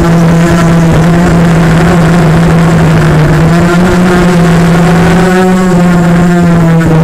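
Bolt 250 quadcopter's Cobra 1960kv brushless motors and propellers whining steadily in flight, the pitch shifting slightly with throttle about four to five seconds in.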